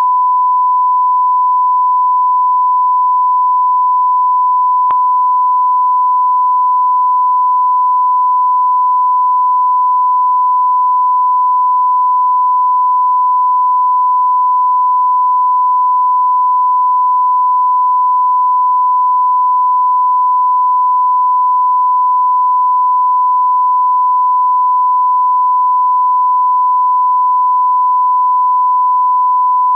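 Steady 1 kHz reference test tone, the line-up tone that goes with SMPTE colour bars, held at one pitch and level throughout, with a faint tick about five seconds in.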